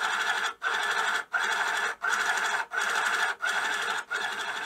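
The AIM-65's built-in thermal printer printing the BASIC program's sine-wave plot line by line. Each line is one steady whirr with a short break before the next, about three lines every two seconds.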